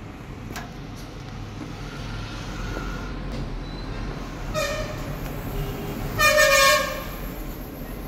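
A vehicle horn honks twice, a short toot and then a longer, louder one, over a steady low rumble of traffic.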